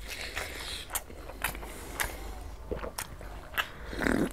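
A person chewing a mouthful of fried egg, with scattered wet mouth clicks and smacks. Near the end comes a sip from a glass of juice.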